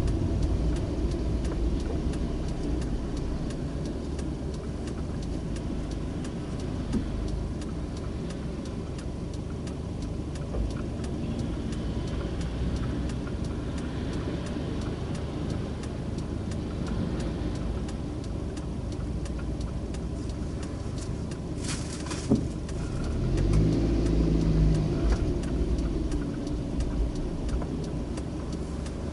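Car engine and road rumble heard from inside the cabin: a steady low hum while the car waits, then the engine rising in pitch as the car pulls away, about 23 seconds in. A single sharp click comes just before the engine rises.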